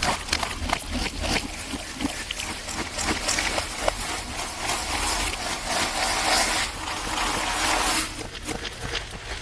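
Slime being handled for ASMR, heavily distorted: sticky clicks and pops, then a dense stretch of wet crackling squish that stops suddenly about eight seconds in.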